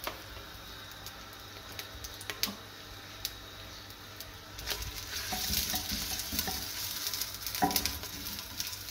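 Chopped onions frying in hot oil in a clay handi. The sizzle is faint at first and grows louder from about halfway. Near the end a wooden spoon stirs and scrapes against the clay pot, with a few light clicks.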